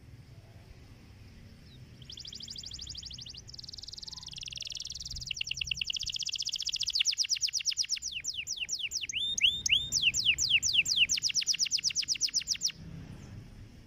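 Domestic canary singing one long song phrase that starts about two seconds in: rapid trills of quickly repeated high notes that grow louder and change into fast sweeping notes, then stop abruptly near the end.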